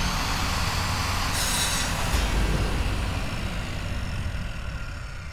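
Logo-intro sound effect: a deep rumble with a short hissing burst about a second and a half in, then slowly fading out.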